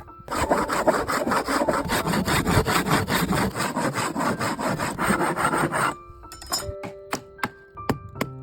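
Hand saw cutting through wood with quick, regular back-and-forth strokes, stopping about six seconds in.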